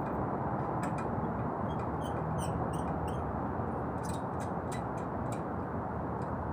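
Scattered light metallic clicks and taps, about a dozen between a second and five seconds in, from hands working in the fan housing of an LG air-conditioner outdoor unit. Under them runs a steady rushing noise.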